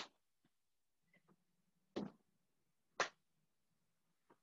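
A person doing power burpees: three short, sharp sounds of the movement and effort, one at the start and two more about two and three seconds in, with near silence between.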